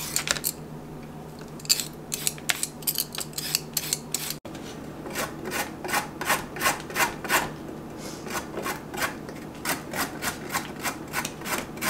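A carrot being scraped with a peeler in a few irregular strokes, then grated on a flat metal hand grater in steady rasping strokes, about three a second.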